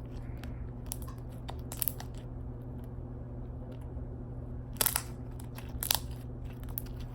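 Glitter slime being squeezed and poked by hand, giving scattered short clicks and crackles. The louder ones come about two seconds in and in a pair about five and six seconds in, over a steady low hum.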